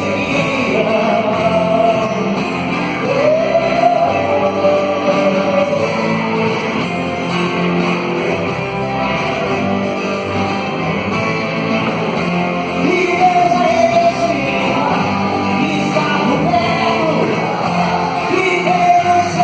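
Gospel band music with a singer's voice holding long, wavering notes over the band.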